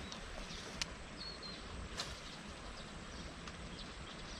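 Steady outdoor background hiss with a small bird giving a short two-note chirp about a second in, and two sharp clicks, one just under a second in and one at about two seconds.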